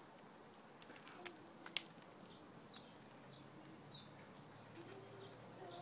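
Fox squirrel nibbling a peanut held in its paws: a few sharp clicks of teeth on the shell in the first two seconds, over faint high bird chirps in the background.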